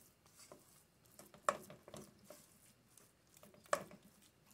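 A silicone spatula stirring and scraping a thick cooked flour-and-margarine dough around a stainless steel saucepan, faint and squishy, the dough pulling away clean from the pan's bottom. Two light knocks, about a second and a half in and again about three-quarters through.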